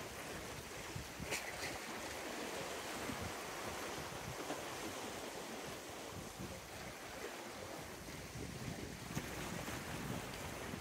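Small sea waves washing and breaking over rocks, with wind on the microphone. A brief click about a second and a half in.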